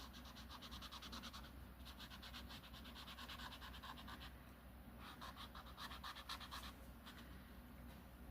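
A colouring pencil shading on a colouring-book page: quick, faint, scratchy back-and-forth strokes in three spells, with short pauses between them.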